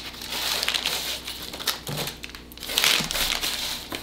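Slotted spatula scooping and flipping roasted potatoes and carrots on a parchment-lined sheet pan: the parchment paper crinkles and rustles while the vegetables tumble over it in uneven crackly bursts.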